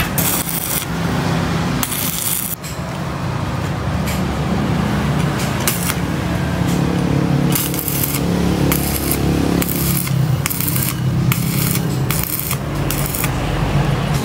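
Stick (arc) welding on steel: the arc crackles and sizzles in a series of short bursts as welds are struck, over a steady low hum.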